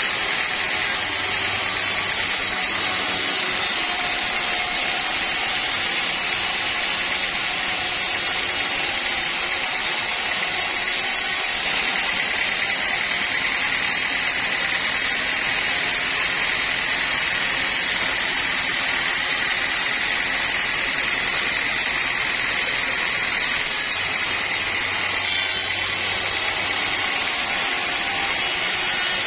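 Band sawmill running steadily, its blade sawing lengthwise through a teak log.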